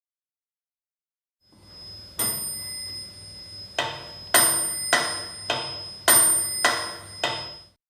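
Metronome with bell ticking at about 100 beats a minute, its bell ringing on every third beat. It starts about a second and a half in and stops suddenly near the end.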